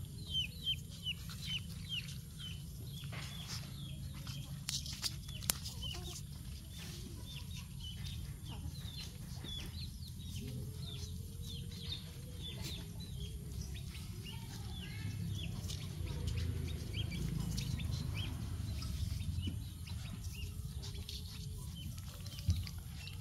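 Bird calls: short, high, falling chirps repeating about three times a second, over a steady low rumble.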